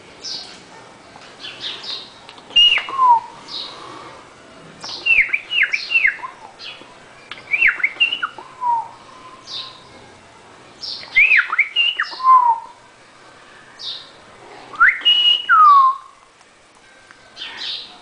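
Cockatiel calling: bursts of short chirps and quick falling whistles every few seconds, with single high chirps in between.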